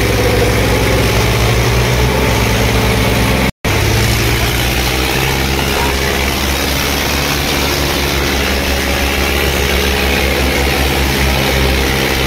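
Eicher 557 and Swaraj 855 tractors' diesel engines running hard and steady under load, pulling against each other in a tractor tug-of-war. The sound drops out for an instant about three and a half seconds in.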